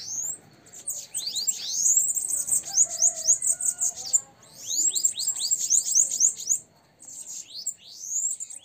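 Caged bananaquits singing during a warm-up between rival birds: rapid runs of high, thin, falling notes in three bouts, starting about a second in, again at about four and a half seconds and near the end.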